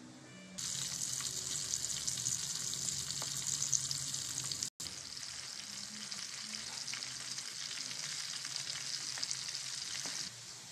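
Small flour-and-cornstarch-coated fish frying in hot oil: a steady crackling sizzle that starts about half a second in, breaks off for an instant near the middle and stops just before the end.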